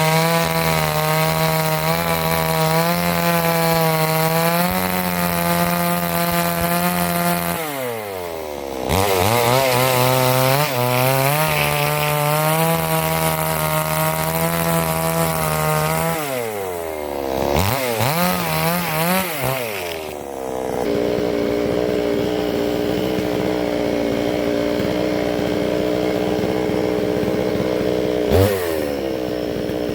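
Two-stroke chainsaw on a vertical chainsaw mill cutting through a log at high revs. The engine pitch drops and recovers twice, then settles to a lower steady running speed with a short rev near the end.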